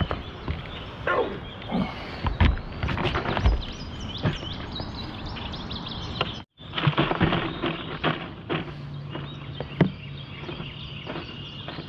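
Clicks, knocks and rattles of a catfish and fishing tackle being handled in a boat, with a few short grunting sounds in the first two seconds. The sound drops out for a moment a little past the middle, and a steady low hum comes in about two seconds later.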